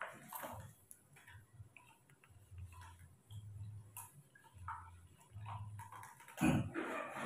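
Newborn baby monkey sucking on its fingers: soft, irregular clicking and smacking sucks, with one louder, brief noise about six and a half seconds in.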